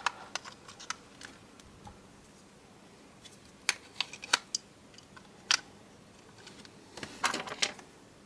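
Small plastic and metal parts of a Sony Rolly speaker being handled and snapped back together: scattered sharp clicks and taps, with a quick cluster of them near the end.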